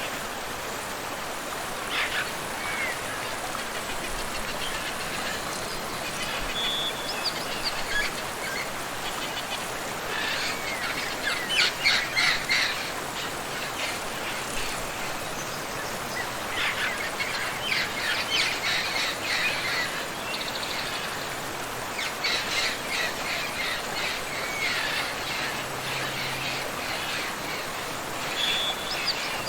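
Steady rushing water of a tropical waterfall and river, with birds calling over it in repeated bursts of quick, high chirps and short whistles. The loudest bird calls come about twelve seconds in.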